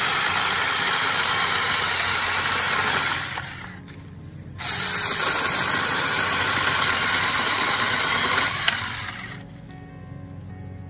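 Saker mini cordless electric chainsaw (4-inch bar, 20-volt battery) cutting through a log: a steady loud motor-and-chain buzz. It stops about three and a half seconds in, starts again suddenly about a second later, and winds down near the end. It is still running at speed after a long battery run-down test, with little sign of slowing.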